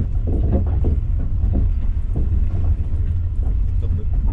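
Passenger train under way, heard from inside an open-plan sleeper car: a loud, steady low rumble of the running gear on the rails.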